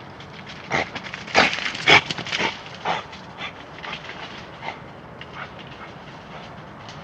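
A badger giving a series of short, sharp calls, loudest and most frequent in the first three seconds, then fainter and sparser, over a steady hiss.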